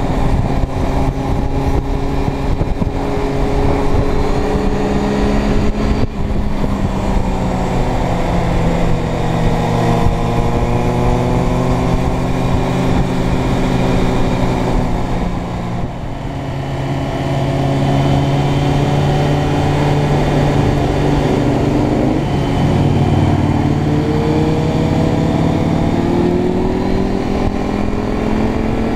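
Motorcycle engine running at road speed, heard from the rider's seat over a steady rush of wind. Its pitch holds and eases off, dips briefly about halfway through as the throttle comes off, then climbs steadily near the end as the bike accelerates.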